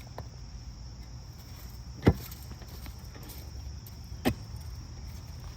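A digging tool strikes twice into a rotten tree stump, two sharp blows about two seconds apart, with a steady high insect drone underneath.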